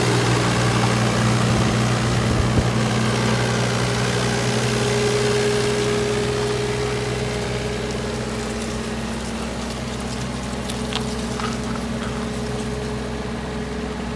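Diesel engine of a CAT 302.4D mini excavator idling steadily, with an even low hum.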